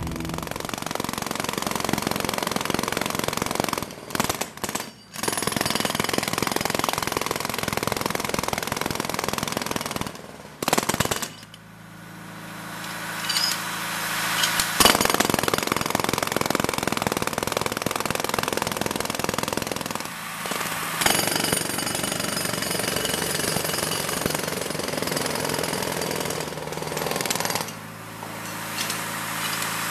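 Jackhammers breaking up a cracked concrete sidewalk: rapid continuous hammering that stops briefly a few times, with a steady hum heard through one of the pauses.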